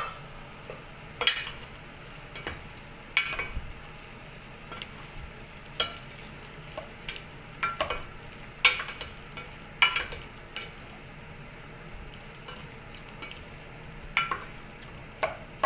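Pork belly cubes and onion being sautéed in a stainless steel pot, with a faint steady sizzle. A spatula stirring the meat scrapes and knocks against the pot every second or two at irregular intervals.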